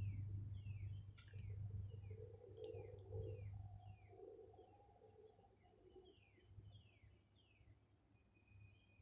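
A bird singing a string of short falling notes, about one or two a second, with one longer level note near the end. Beneath it a low rumble of distant highway traffic fades over the first few seconds.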